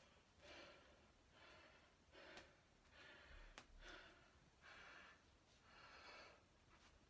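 A man breathing hard, winded from kettlebell swings: about six heavy, hissy breaths, roughly one a second. Two faint clicks fall near the middle.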